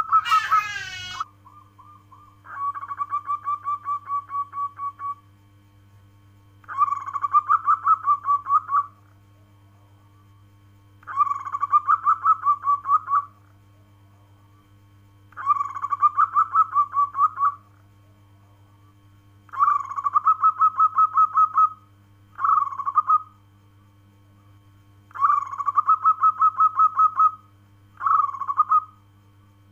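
Zebra dove (perkutut) singing: repeated bouts of its rapid, staccato cooing song, each about two seconds long, coming every few seconds. A short sound sweeping up in pitch is heard at the very start.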